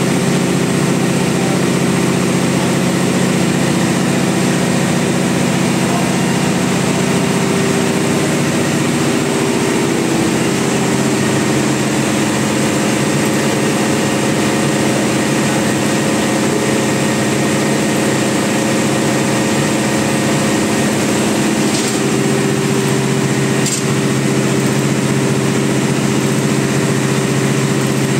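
Yanmar marine diesel engine running steadily in a ship's engine room, a loud, even drone whose pitch shifts slightly about ten seconds in.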